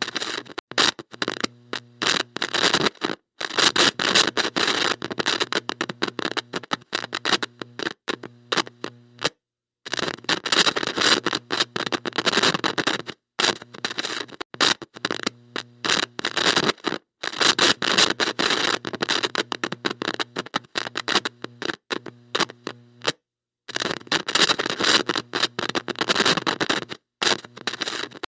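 Heavy electrical static from a bad connection: loud crackling hiss with a buzzing hum underneath, cutting in and out erratically, dropping to silence several times for up to a second.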